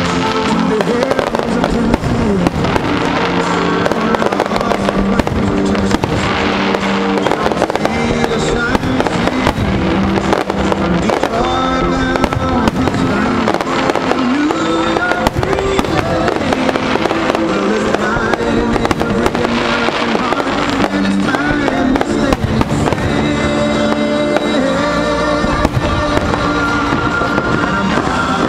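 Aerial fireworks shells bursting one after another in quick succession, with music playing throughout.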